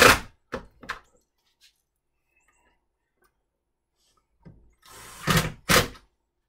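Power drill-driver driving pocket-hole screws in short bursts. There is a loud burst at the start and two brief ones just after, a pause, then a few more bursts about five seconds in.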